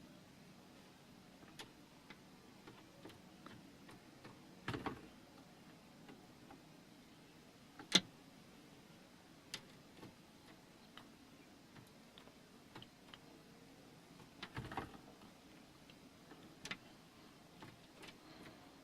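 Scattered light taps and clicks at irregular intervals, with two short rattling clusters, from a bird pecking and scrabbling at the car.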